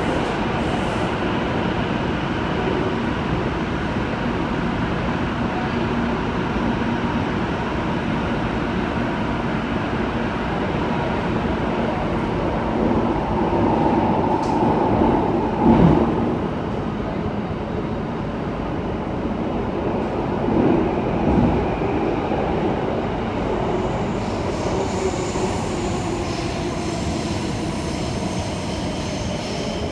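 Inside a Bombardier Movia C951 driverless metro car in motion: the steady rumble of wheels and running gear on the track. It swells to a sharp bump about halfway through, with a smaller bump some five seconds later, and a thin high whine joins in the last few seconds.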